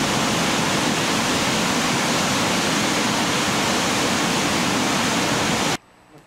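Meltwater river pouring over a waterfall and through whitewater rapids: a loud, dense, steady rush of water. It cuts off abruptly near the end, leaving only a faint hush.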